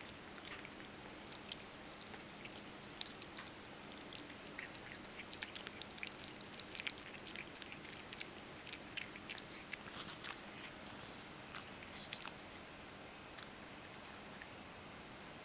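Ragdoll cat crunching dry kibble: a quick, irregular run of small crisp crunches that thins out to a few stray ones after about twelve seconds.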